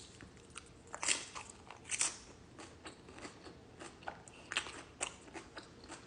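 Close-up chewing of a mouthful of chicken burrito: wet, irregular mouth smacks and clicks, the most distinct about one, two and four and a half seconds in.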